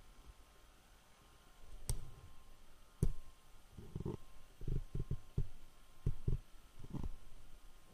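Faint, irregular low thumps, several close together in the second half, with two sharp clicks about two and three seconds in.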